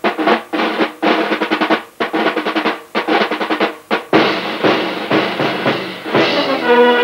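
Military band snare drums beating repeated rolls, about one a second, in a marching cadence. Near the end, brass comes in with held chords.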